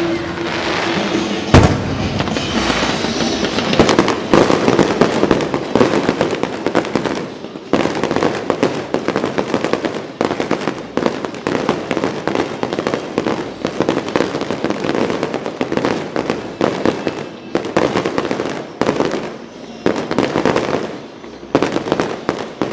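Aerial fireworks bursting and crackling in rapid succession, with a single sharp loud bang about a second and a half in.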